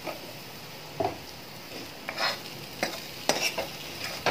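Steel ladle stirring and scraping spiced potato cubes around a metal kadhai: a handful of sharp scrapes at uneven intervals, more frequent toward the end, over a faint steady sizzle from the pan.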